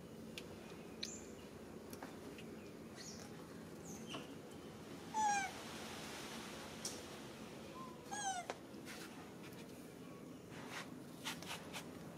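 Two short, high-pitched falling cries from a young macaque, about three seconds apart, the first the louder. Faint high chirps and light ticks come and go in between.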